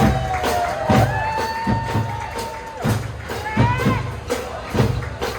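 Children's drum band playing: regular drum strikes under a melody of held notes.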